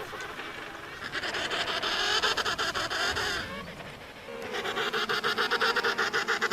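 Penguin calling: two long calls made of a rapid, even pulsing, the first starting about a second in and the second about a second after the first stops, running on past the end.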